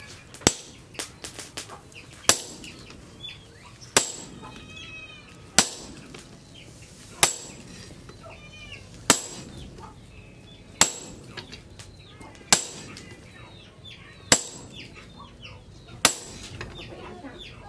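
Sledgehammer blows struck on a top tool held with tongs against a red-hot leaf-spring steel blade on an anvil: ten sharp metal strikes at a steady pace, about one every second and a half to two seconds.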